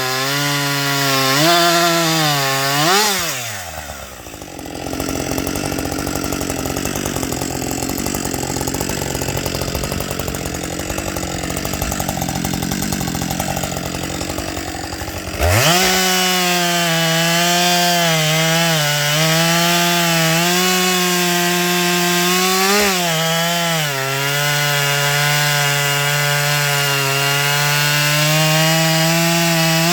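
Husqvarna 555 two-stroke chainsaw revving, then dropping sharply in pitch and running low and rough under load for about twelve seconds, as when the bar is sunk into wood. It then revs free at a high, steady speed, with a couple of brief dips.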